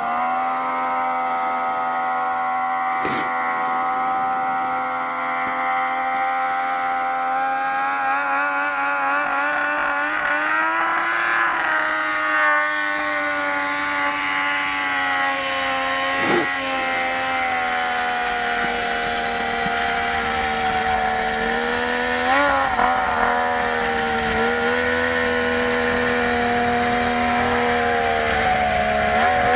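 Yamaha snowmobile engine running at a steady, fairly high pitch as it rides through deep snow, with slight rises and dips in pitch a few times. Two short sharp clicks, one early and one about halfway through.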